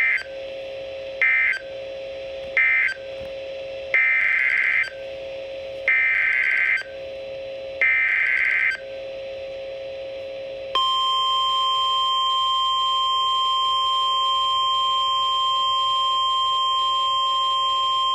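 NOAA Weather Radio emergency alert tones: three short buzzy SAME digital data bursts closing the previous warning, then three longer bursts carrying the header of the next, with a steady hum between them. About 11 seconds in, the steady 1050 Hz warning alarm tone starts and holds, signalling an urgent warning about to be read.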